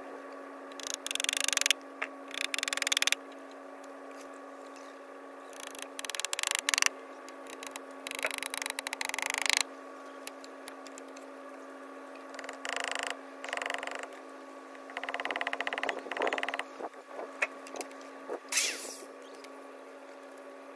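Wooden shelf being worked by hand: repeated short spells of rasping scraping and creaking wood, and one sharp knock near the end.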